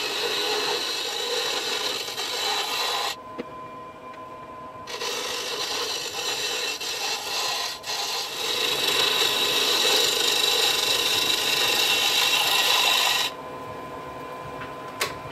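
A wood lathe spins a stack of walnut wheel blanks while an Easy Wood Tools carbide cutter takes light passes across them, making a steady scraping hiss. The cutting stops for a couple of seconds about three seconds in and again near the end, leaving only the lathe's steady hum.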